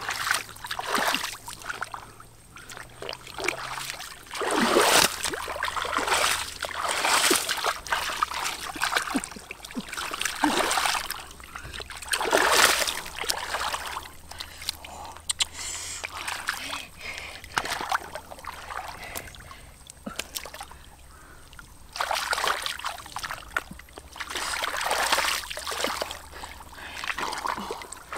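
Water splashing and sloshing in repeated irregular bursts, as someone moves through shallow floodwater.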